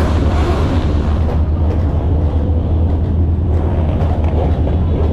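Steady low rumble of car engines and road noise, with no distinct rev or pass-by standing out.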